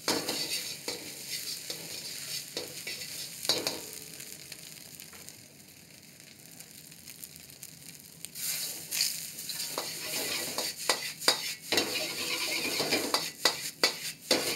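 Fried rice sizzling in a wok over a high gas flame, with a metal ladle clacking and scraping against the wok as the rice is stirred and tossed. The clacking stops for a few seconds in the middle, leaving a quieter sizzle, then comes back in quick strikes.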